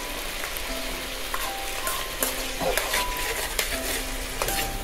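Boiled chickpeas (chana) sizzling as they fry in oil in a non-stick kadai, stirred with a steel spoon that knocks and scrapes against the pan several times over a steady sizzle.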